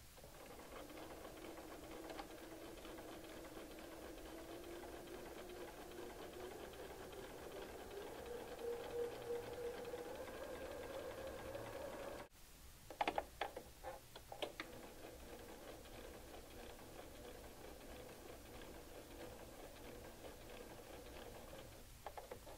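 Electric sewing machine straight-stitching slowly with very short stitches around a fused fabric appliqué. Its motor hum climbs gradually in pitch, breaks off about twelve seconds in, and is followed by a few sharp clicks and then a quieter, steady run.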